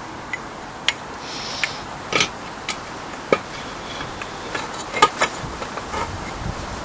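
Irregular light clicks and knocks of tools and engine parts being handled during reassembly of an 8 HP Briggs & Stratton engine, the loudest knock about five seconds in.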